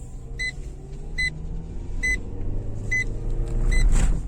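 Renault Megane 2 cabin on the move: steady road and engine rumble, with a short electronic dashboard beep repeating a little more than once a second. A louder jolt from the body comes near the end.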